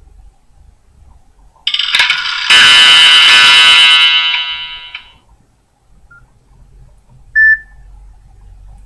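A Nokia N72 ringtone playing: a loud buzzing, many-toned electronic burst about two seconds in, joined by a loud hissing crash that fades away by about five seconds. A single short beep near the end.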